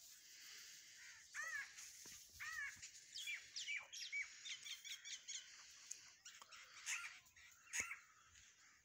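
Birds calling in quick succession, with crows cawing among smaller chirping birds, over a steady hiss. One sharp click comes about eight seconds in.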